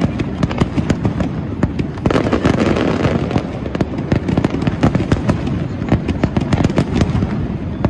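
Professional fireworks barrage: aerial shells bursting in rapid, overlapping bangs and crackles, many reports a second without a break.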